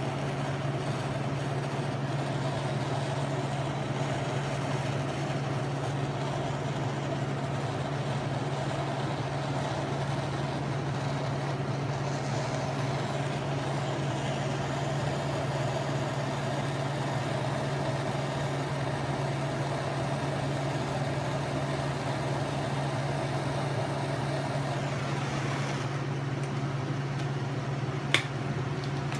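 Shop machinery running steadily with a constant low hum under a broad hiss, and a single sharp click near the end.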